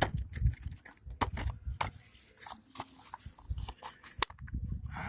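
Handling noise of packaging: rustling, with many sharp clicks and knocks as the box and its plastic insert are moved about and the USB Wi-Fi adapter is taken out.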